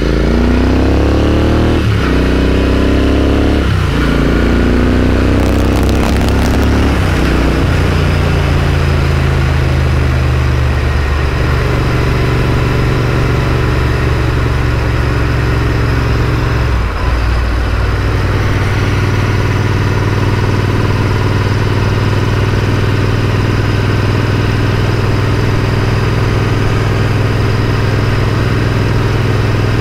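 Royal Enfield Interceptor 650 parallel-twin engine with an AEW aftermarket exhaust, under way on the road. The revs climb and drop back with two quick upshifts in the first four seconds, then settle into a steady cruise, with a brief dip in revs about seventeen seconds in.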